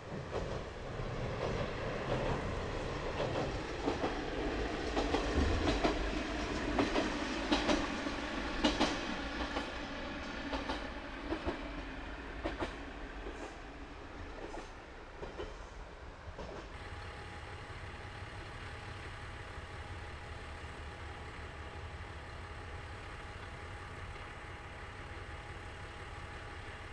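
KiHa 40 diesel railcar running past, its wheels clicking over the rail joints in pairs about a second apart, growing louder and then fading. About two-thirds of the way in the sound cuts to a steady diesel engine idle, the railcar's original DMF15HSA engine.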